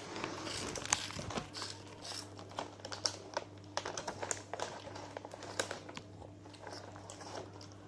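Plastic snack packets crinkling and crackling as they are handled and emptied of puffed corn snacks into a bowl: many small, irregular crackles.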